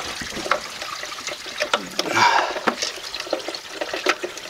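Engine coolant trickling and splashing as the thermostat is pulled from the Mazda MX-5's engine, with irregular clicks and knocks of metal parts and tools, and a brief splash about two seconds in.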